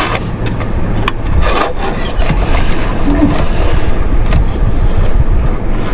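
Wiring cable and pipe snake being pulled slowly through the plastic cowl, rubbing and knocking against the trim in a few scattered clicks, over a heavy low rumble.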